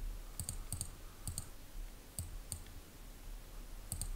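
Computer mouse buttons clicking: about half a dozen short, sharp clicks spread unevenly, most of them a quick double tick of press and release.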